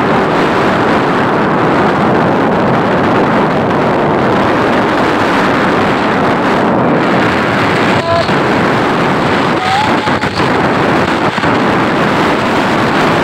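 Steady loud rush of wind buffeting the microphone, mixed with engine and road noise from a moving motorcycle. A couple of short pitched sounds come through about eight and ten seconds in.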